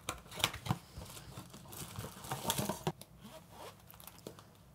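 Hands opening a small cardboard box and sliding out a leather watch case: scraping and rustling of card with light clicks and taps, mostly in the first three seconds, then quieter.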